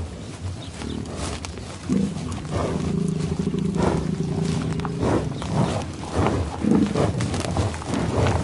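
American bison in tall grass: a long, low grunt starts about two seconds in and holds for some three seconds, then gives way to short snuffling breaths and chewing among rustling grass.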